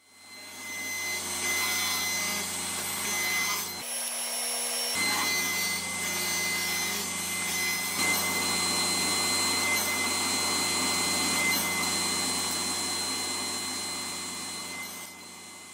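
Table saw running with a steady hum and whine while a thin strip of wood is crosscut on a sled. The hum drops out for about a second near the start, and the sound fades away near the end.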